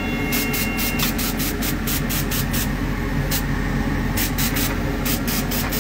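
Airbrush spraying coloured cocoa butter onto a polycarbonate chocolate mold in quick short bursts, several a second with a few pauses, over the steady hum of the air compressor feeding it.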